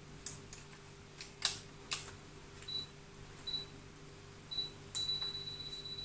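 Controls of a DSLR camera on a tripod clicking as it is adjusted, with three short high beeps. Then a click about five seconds in starts a steady high beep: the camera's 2-second self-timer counting down to the shot.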